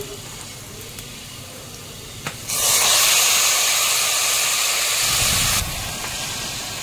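Raw mutton pieces hitting hot oil and fried onions in a pressure cooker: a low sizzle, then about two and a half seconds in a sudden loud hissing sizzle as the meat goes in, lasting about three seconds before it drops back.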